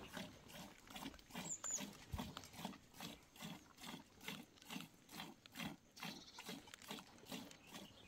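A goat being milked by hand, with milk squirting into a metal bowl in a steady rhythm of about three squirts a second.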